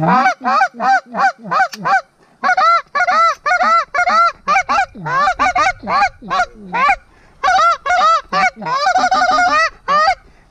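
Goose call blown by hand in a loud, fast series of honks and clucks, imitating small Canada geese to bring in an incoming flock. There is a short break about two seconds in and a quicker run of clucks near the end.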